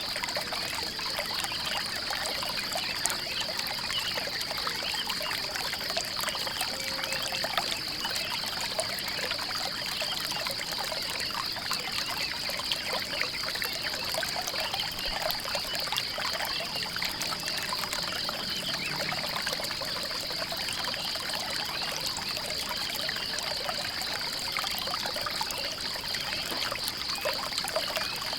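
Small stream of water trickling and splashing steadily, with a continuous high-pitched trill running through it.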